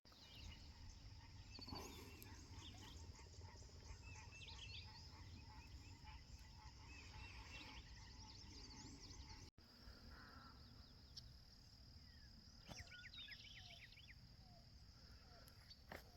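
Faint wetland birdsong: many short chirps and calls scattered throughout, over a steady high insect drone.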